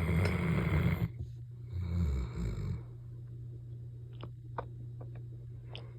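Great Pyrenees dog snoring: one snore through the first second, then a second, shorter snore about two seconds in, after which it goes quiet.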